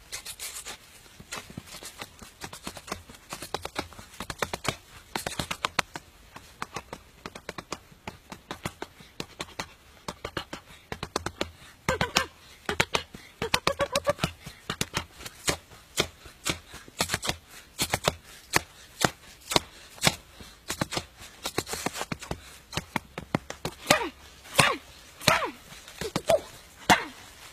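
Fists hitting a birch tree trunk in fast, irregular combinations, a dense run of sharp knocks several to the second. The strikes grow louder in the second half.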